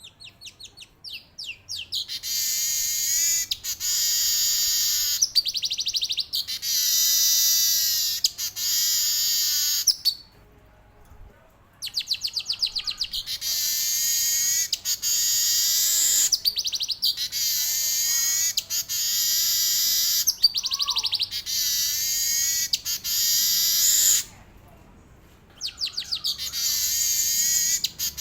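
Male weaver bird (manyar) singing: quick ticking trills that run into long buzzy phrases, phrase after phrase, falling silent briefly twice.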